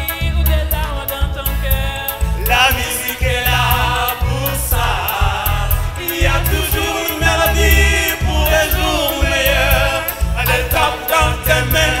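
Choir and soloists singing an upbeat Antillean zouk pop song live, over a steady bass beat and evenly spaced high percussion ticks.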